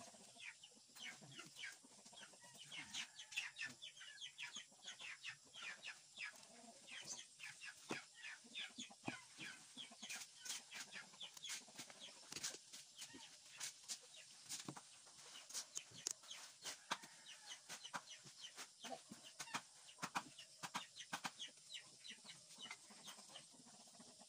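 Faint chicken clucking: a quick, uneven run of short calls.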